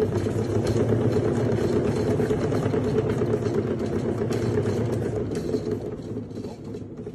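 Large cat exercise wheel rumbling steadily as a kitten runs in it and spins it fast; the rumble fades near the end as the wheel slows.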